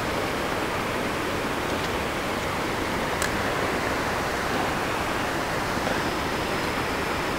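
Steady rushing noise of running water, even and unbroken, with a faint click about three seconds in.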